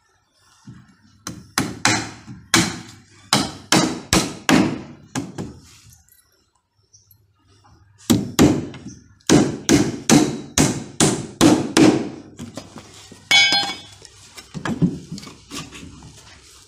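Hammer driving nails into wooden formwork battens in two runs of quick blows, about two or three a second, with a pause between. A short ringing metallic clink comes after the second run, then a few lighter taps.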